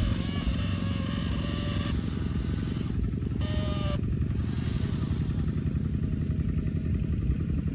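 Engine sound of an RC truck running steadily, a fast low throb. A short higher-pitched sound comes about three and a half seconds in.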